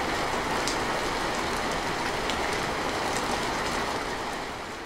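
Heavy rain falling steadily: a dense hiss with a low rumble and scattered sharper drop hits, beginning to fade near the end.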